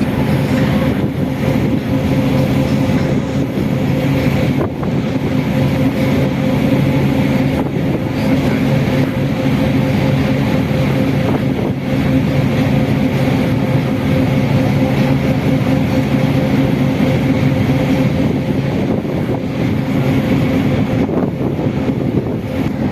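Sightseeing river boat's engine droning steadily, a constant-pitch hum over a broad rushing noise.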